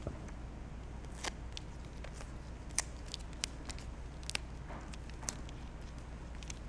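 Faint, scattered clicks and rustles of wires and plastic harness connectors being handled and plugged into a remote-starter module, over a low steady hum.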